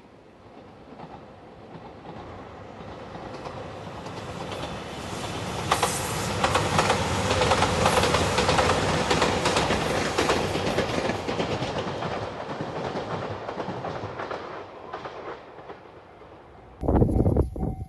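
A train passing over a level crossing, its wheels clacking over the rail joints. It builds up, is loudest about a third of the way in, then fades away. Near the end an abrupt cut brings in wind noise on the microphone.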